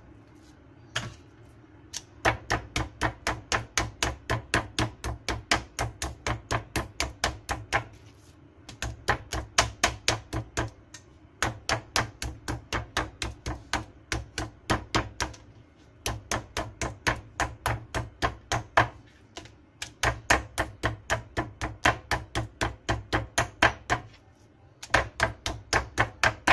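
Meat tenderizer pounding raw pork collar slices on a plastic cutting board to tenderize them: rapid, even strikes about three to four a second, in runs with short pauses between.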